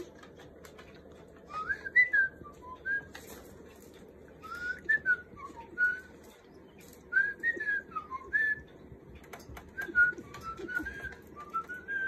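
Pet parrot whistling: four short phrases of clear notes gliding up and down, each one to two seconds long, with short pauses between them.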